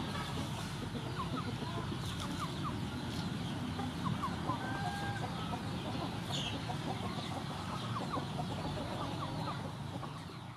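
Outdoor yard ambience of chickens clucking, with scattered short bird calls over a steady low background noise, fading out near the end.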